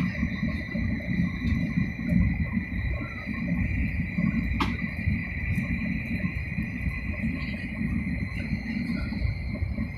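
Cabin running noise of an 800 series Shinkansen at speed: a continuous low rumble with a steady high whine over it, and one short click about halfway through.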